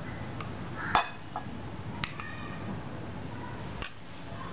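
A few light clinks of glass on glass as a glass bowl of thick red chilli masala paste is tipped and scraped onto chicken pieces on a glass plate, the loudest about a second in.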